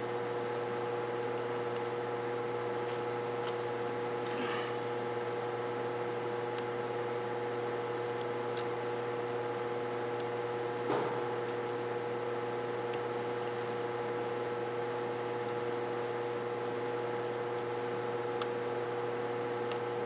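A steady, even hum with several pitches in it, and faint scattered ticks and rustles as burnt electrical tape is picked off a wiring harness with a small tool.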